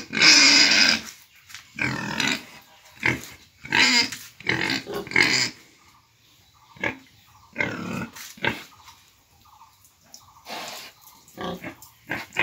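Pigs squealing and grunting in short repeated calls, with a loud squeal right at the start. The calls come thickly for the first half and turn sparser and quieter after that.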